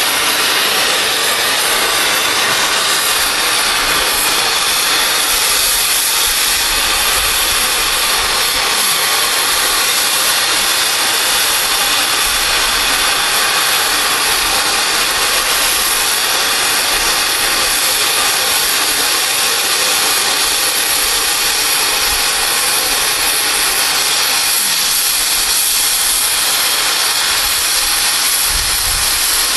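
Oxy-fuel cutting torch hissing steadily as it flame-cuts steel railroad rail.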